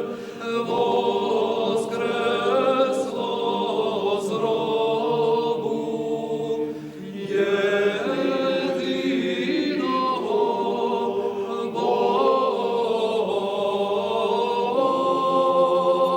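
A choir singing chant a cappella in long, held phrases, with a short break between phrases about seven seconds in.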